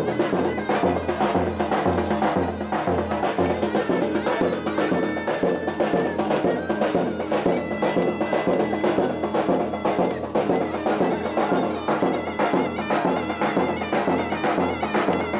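Turkish folk music: a loud, reedy zurna playing a melody over a steady davul drum beat.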